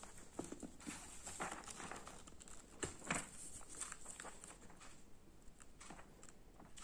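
Paper book pages rustling and flapping as a kitten paws and bites at them: a string of faint, irregular crinkles and scratches, the loudest about three seconds in.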